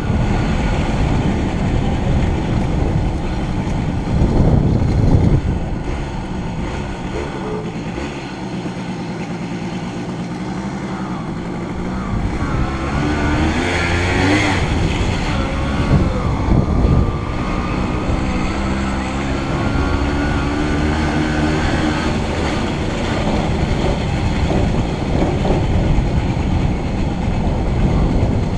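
Steady wind buffeting and rolling rumble from riding along town streets, with cobbled stretches.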